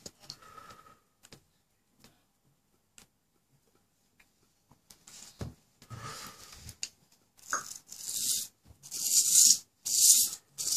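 A stiff brush scrubbing over a Bosc monitor lizard's scaly hide in a bathtub, in rasping strokes about once or twice a second from about seven seconds in. Before that it is mostly quiet, with a few faint clicks.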